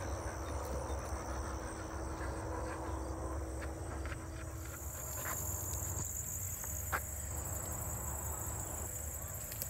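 Steady high-pitched chorus of insects trilling from the marsh vegetation, growing louder about halfway through, over a low rumble.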